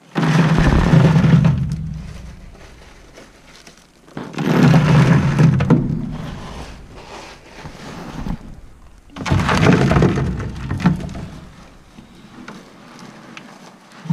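Broken ore rattling and crunching as loose rock is gathered on a tarp and poured into a sample bag, in three bursts about four to five seconds apart, each fading out over a second or two.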